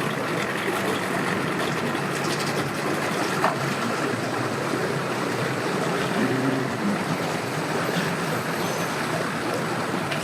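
Boat motors running at low speed, steady, over a continuous rush of background noise.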